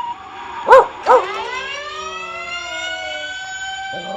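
Siren sound effect played back from a video: two short, loud whoops about a second in, then a long wail that rises and levels off, with another rise starting near the end.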